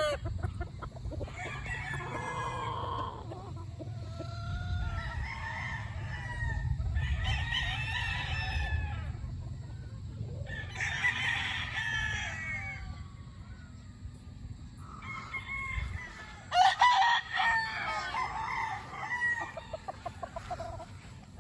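Gamefowl stags (young roosters) crowing, a series of separate crows one after another from more than one bird. A steady low rumble runs under most of it and stops about 16 seconds in.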